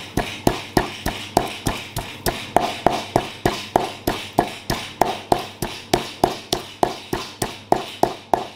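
Pestle pounding in a mortar, steady strokes at about three a second, each with a short ring, as spices or dried chili are crushed.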